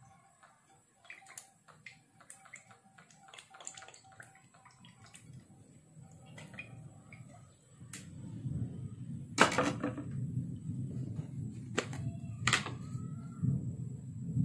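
Cooking oil poured into a nonstick wok, followed by the pan heating on a gas stove: a low rushing noise builds from about eight seconds in, broken by a few sharp clicks and knocks.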